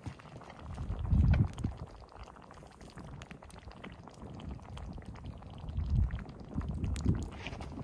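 A pot of chicken stew bubbling at a simmer, a steady patter of small pops. Louder low rumbles come about a second in and again near the end.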